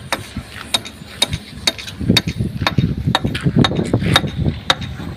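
A metal hand tool tapping and chipping at a rusty steel rail to knock the rust off, about two sharp, ringing metallic strikes a second. A low rumbling noise runs under the strikes for a couple of seconds in the middle.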